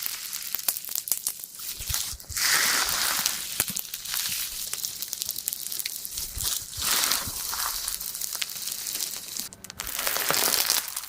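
Slime being squished and worked, with dense, uneven crackling and crinkling.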